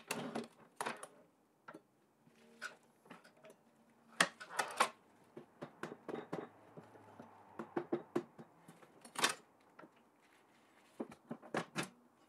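Faint scattered knocks and light scrapes of a wooden shelf board being shifted on a mitre saw's table and fence while it is lined up against the stopped blade, with a small cluster of knocks near the end.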